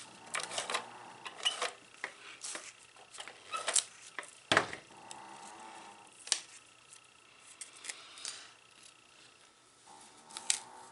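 Paper being trimmed with scissors: a run of small snips and clicks as die-cut palm tree fronds are cut off, with one sharper knock about four and a half seconds in.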